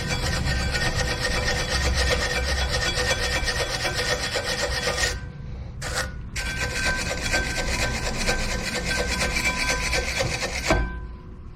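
A brush scrubbing hard and fast at the brake caliper's pad-slide surfaces to clean off dirt. It pauses briefly about halfway and stops shortly before the end.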